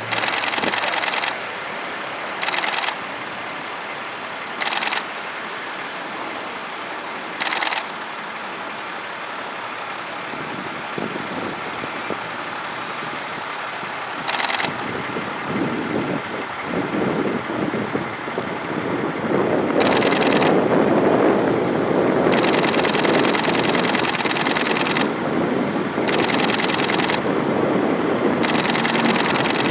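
E-2 Hawkeye's twin turboprop engines droning as the aircraft flies its demo. The drone builds about halfway through and is loudest in the last third. Over it come repeated bursts of rapid camera shutter clicks, several of them close together near the end.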